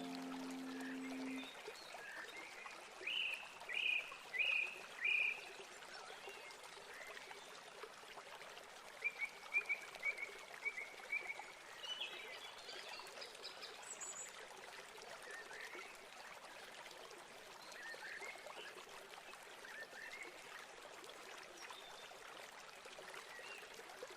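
Faint outdoor ambience: short chirping animal calls, four in a row early and a quick series about ten seconds in, over a steady hiss. The last strummed acoustic guitar chord dies away in the first second or so.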